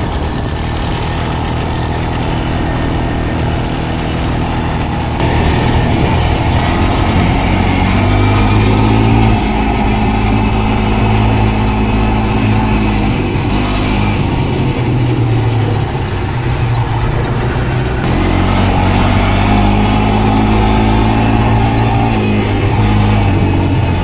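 ATV engine running while riding, its pitch rising and falling with the throttle over a steady noisy rumble, getting louder about five seconds in.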